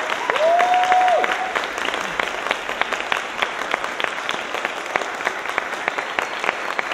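Theatre audience applauding, with a long cheering whoop from the crowd about half a second in.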